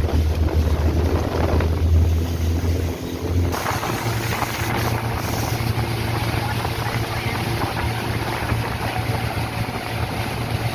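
Boat engine running steadily under a broad rush of wind and water. About three and a half seconds in, the engine's low hum steps up in pitch and the hiss gets brighter.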